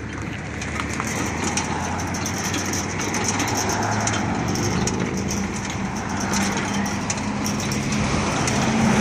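Custom pedal-driven Husqvarna lawn tractor and trailed cart rolling over gritty pavement, the tyres crunching with many small clicks over a low steady hum.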